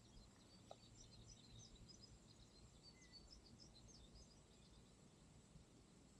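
Near silence outdoors, with faint, scattered bird chirps throughout.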